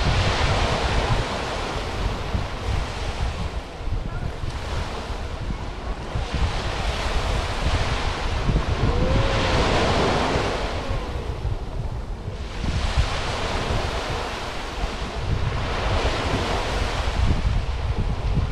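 Mediterranean sea waves washing onto the beach, the hiss of each wave swelling and fading every few seconds. Wind rumbles steadily on the microphone underneath.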